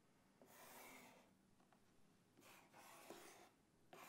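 Faint scratching of a colored pencil drawing on paper glued over a cardboard box. It comes in three stretches of strokes: about half a second in, again after two and a half seconds, and once more near the end.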